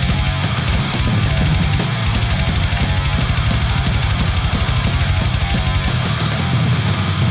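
Loud heavy rock music with a fast, driving drum beat and electric guitar.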